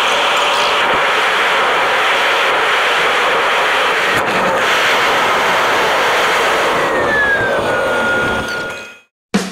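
Jet airliner cabin noise from a window seat over the wing on landing: a steady roar of engine and rushing air, with a brief knock about four seconds in around touchdown. Near the end a whine falls in pitch as the aircraft rolls out with its spoilers up, and the sound then fades away.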